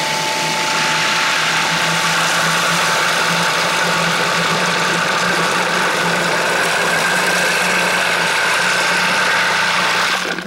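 Food processor motor running steadily with a low hum, its blade spinning while hot heavy cream is poured in through the feed tube onto finely ground chocolate to blend it into ganache. The motor cuts off abruptly just before the end.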